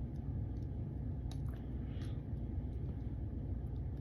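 A few faint light clicks from a pipe tamper packing tobacco down in the bowl, over a steady low rumble.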